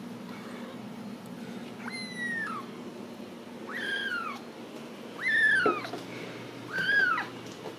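Ragdoll kitten mewing four times, each a short high-pitched cry that falls in pitch, spaced about one and a half seconds apart.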